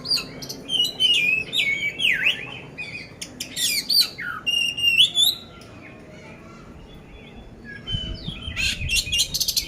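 Oriental magpie-robin (kacer poci) singing a loud, varied song of whistles, sweeping glides and harsh rattling notes, the rough 'isian kasar' fill. It goes quiet for a couple of seconds past the middle, then starts again with a fast rattle near the end, over a few low knocks.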